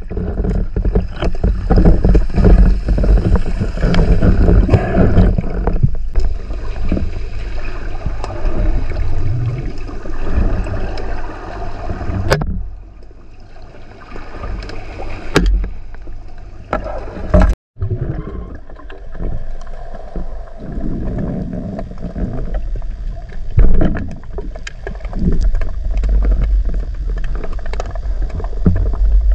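Muffled underwater noise recorded by a camera in its waterproof housing: water rushing and sloshing around the housing as the diver swims, with a few sharp clicks and a brief cut to silence a little past halfway.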